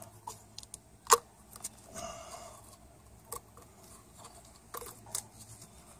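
Small metallic clicks and scrapes of a steel pick tool prying a wire dust-boot retention clip out of a brake caliper piston bore. The sharpest click comes about a second in, with a few lighter ticks after it.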